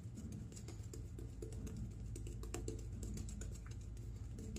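Shaving brush working a heavy lather of shaving soap over the face: faint, irregular crackling and swishing of the bristles and foam.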